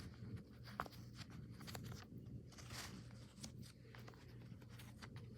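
Faint clicks and soft pops of a silicone pop-it fidget toy being pressed and handled, with one sharper click about a second in.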